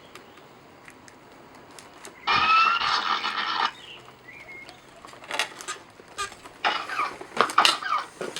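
Motorized Iron Man Mark VI helmet: a loud whine rising in pitch for about a second and a half, as of the faceplate's servo motor moving. After it comes a run of sharp mechanical clicks and short whirs.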